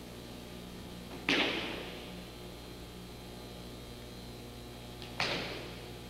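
Two sharp slaps of a body hitting the mat in aikido breakfalls, about four seconds apart, each with a short fading tail, over a steady electrical hum.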